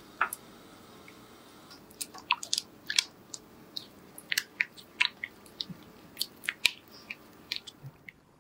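Silicone spatula stirring and folding a thick, cooked tapioca-starch paste in a pot, giving a run of short, irregular clicks and smacks, several a second from about two seconds in. The starch has set into a stretchy, mochi-like dough.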